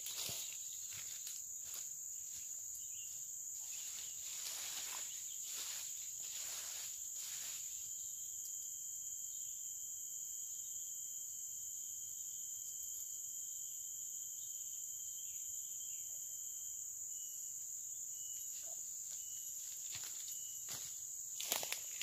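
Steady high-pitched drone of insects in tropical forest, with a second thinner whine joining for several seconds in the middle. Dry leaf litter rustles and crackles in short bursts during the first several seconds and again near the end.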